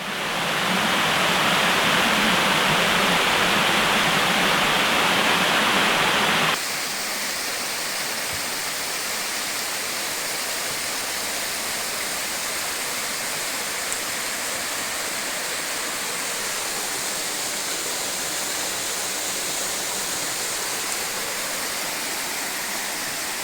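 Waterfall: a steady rush of falling water that changes abruptly about six and a half seconds in to a quieter, thinner hiss of water, which then holds steady.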